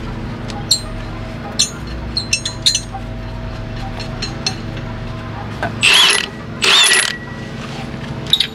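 Scattered small metal clicks and clinks of lug nuts being unthreaded from the wheel studs by hand and handled, over a steady low hum. About six seconds in come two loud, short rushing noises, each about half a second long.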